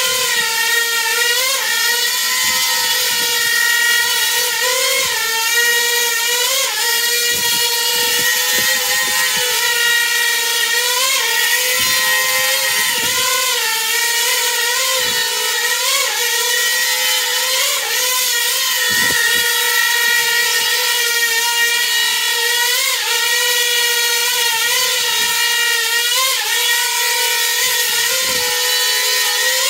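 Coaxial copter's counter-rotating propellers and motors hovering with a steady whine, its pitch dipping and rising briefly every second or two as ArduPilot AutoTune twitches the craft to tune its control loops.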